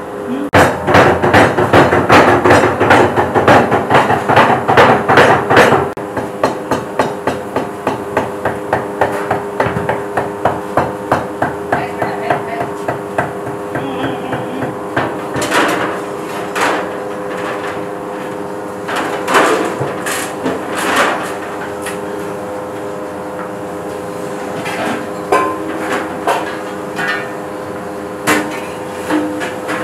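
Rapid hammering strikes, about four or five a second and loud for the first several seconds, then lighter and slower, thinning out to occasional single knocks, over a steady hum.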